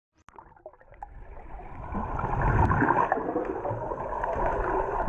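Pool water splashing and gurgling around a camera at and below the surface, with a swimmer moving through the water close by. It starts abruptly out of silence, grows louder over the first two seconds, then holds as a dense, muffled wash with scattered small clicks and pops.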